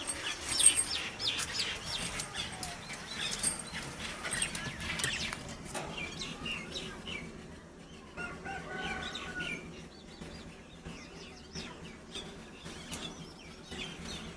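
Birds chirping in a pigeon colony: many short high chirps in quick succession, thinning out after about six seconds, with scattered clicks and wing flutters.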